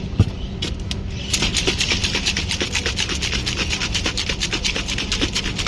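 A single sharp knock, then from about a second in a fast, even run of rasping strokes, about eight a second, from a drink being worked by hand at a mocktail stall.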